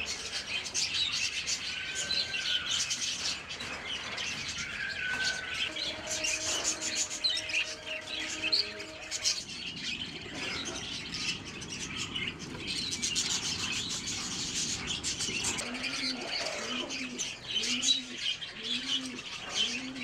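A flock of budgerigars chattering with continuous high chirps, with domestic pigeons cooing; in the last few seconds a pigeon coos in a run of about six low repeated notes.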